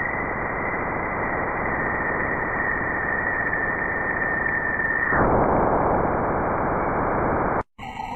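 Sonified planetary radio emissions, NASA space-probe data converted to audio: a steady static-like hiss with a thin high tone. About five seconds in the tone stops and the hiss changes. Near the end it cuts out briefly and a different recording with gliding tones begins.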